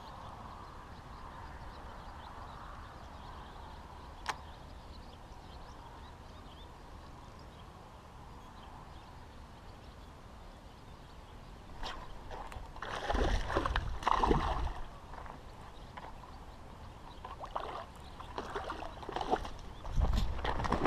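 A hooked bass splashing and thrashing at the water's surface in irregular bursts as it is reeled in and lifted out, after a stretch of faint steady background.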